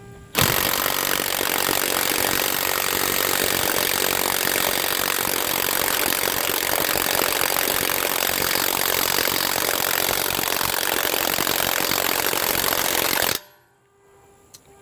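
HANS 1/2" cordless impact wrench hammering continuously on a lug nut for about thirteen seconds, then stopping suddenly. It fails to break the nut loose.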